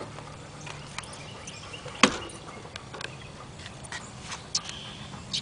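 A few scattered light taps and clicks, the clearest about two seconds in, with smaller ones through the second half.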